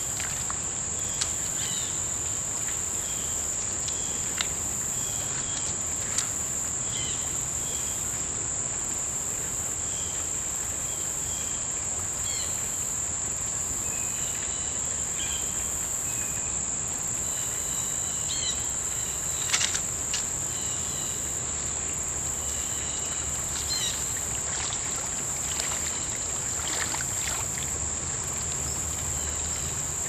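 Insects droning steadily in a high, unbroken buzz, with scattered short chirps and a few sharp clicks, the loudest about two-thirds of the way through.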